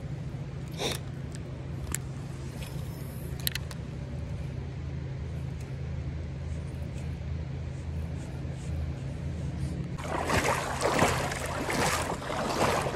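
A steady low hum with a few faint clicks. From about ten seconds in, close-up creek water splashes and sloshes loudly.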